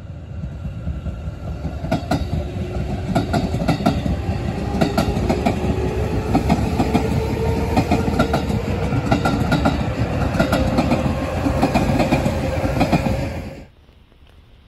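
JR 211 series electric train passing close by: a steady rumble with groups of clickety-clack as its wheels cross the rail joints, and a faint tone rising slowly in pitch. The sound cuts off sharply about a second before the end, leaving quiet outdoor ambience.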